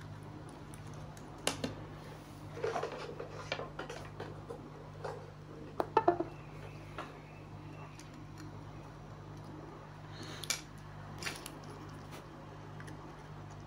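Scattered small clicks and clinks of hand tools and electronic parts being handled during circuit-board repair work, a cluster of sharper clicks about six seconds in, over a steady low hum.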